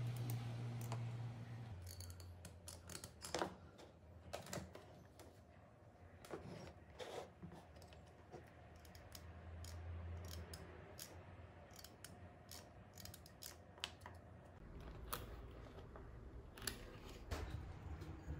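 Scattered light clicks and taps of small plastic parts and wire leads being handled: a cordless drill's trigger switch and alligator-clip test leads. A faint low hum runs underneath, stronger for the first two seconds and again briefly around ten seconds in.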